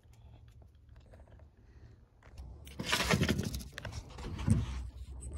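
Faint for the first couple of seconds, then loud rustling, scraping and a few low bumps from about three seconds in: hands handling and moving the phone right at its microphone.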